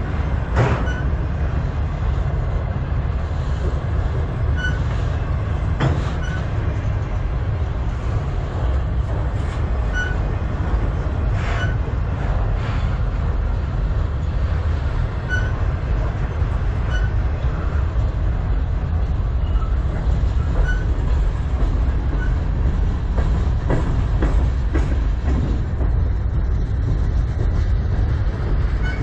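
Freight train cars rolling past at close range: a steady, heavy low rumble of steel wheels on the rails, broken by a few sharp clanks and knocks.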